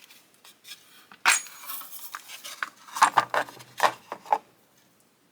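Small metal tool pieces, sockets and a ratchet handle, clinking and rattling against each other as they are handled. A few clinks come first, then a busier run of them around three to four seconds in.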